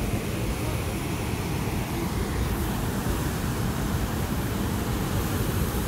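Steady rushing noise of a waterfall and whitewater rapids, heaviest in the low rumble.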